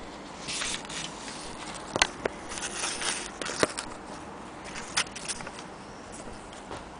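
Close handling noise: fingers rubbing and knocking against the recording device, with cloth rustling and three sharp clicks at irregular intervals.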